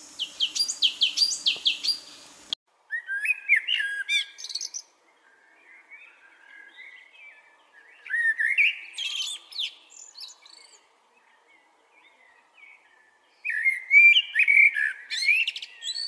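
Small songbirds singing. A quick run of about eight sharp chirps cuts off abruptly after two and a half seconds. Then a different recording follows, with warbling song phrases in three bursts about five seconds apart and quieter twittering between them.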